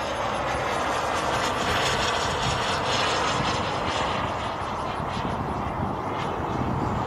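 Gas turbine of a BVM Ultra Bandit RC model jet in flight overhead: a steady jet whoosh that swells a little in the middle of the pass.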